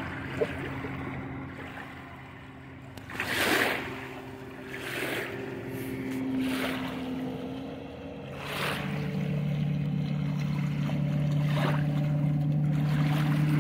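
Small waves washing in over a gravel lakeshore in short swells every second or two, over the steady hum of an engine that grows louder about eight seconds in.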